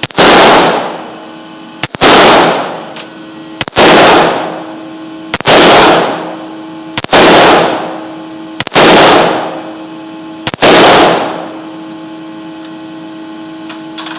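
AR-15 rifle fired seven times at a steady pace, about one shot every 1.7 seconds, each loud crack trailing off in an echo of about a second. The shooting stops about 11 seconds in, and a couple of faint clicks follow near the end.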